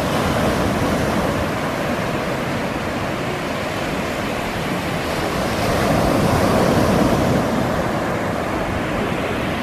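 Ocean surf breaking on a sandy beach: a steady wash of waves that swells louder for a moment about six seconds in.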